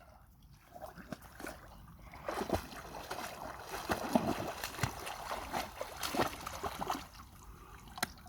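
A dog splashing through lake water as it comes back with its fetched object. The splashing is irregular, starts about a second in, grows busier after two seconds, and dies away near the end.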